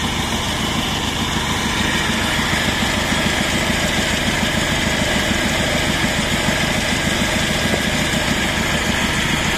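Engine of a trailer-mounted horizontal mobile sawmill running steadily at idle.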